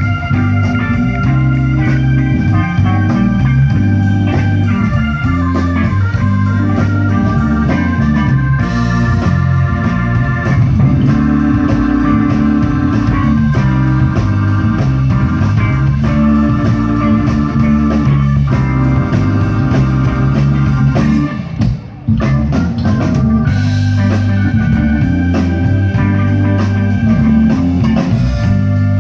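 Live electric blues band playing a slow blues: an organ holds chords and plays lines over bass and drums, with electric guitar in the mix. The band drops out briefly a little past the middle, then comes back in.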